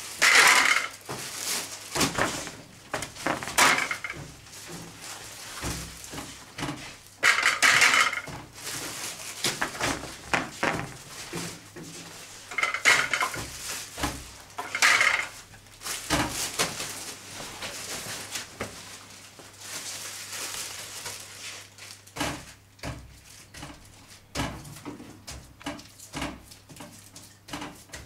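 Irregular clattering and scraping as sticky feed-patty dough is worked by hand out of a large metal pot and onto a scale and metal worktable, with clear plastic bags rustling.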